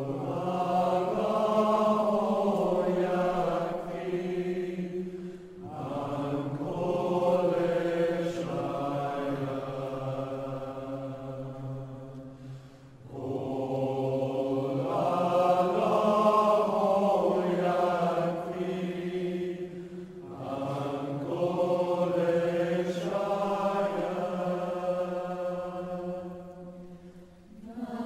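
Voices chanting a devotional verse in slow, drawn-out phrases, four phrases of about six to seven seconds each with a short breath between them.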